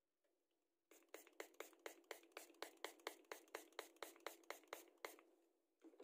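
Small hand spray bottle pumped rapidly: an even run of short, sharp spritzes, about five a second for some four seconds, then a louder knock near the end.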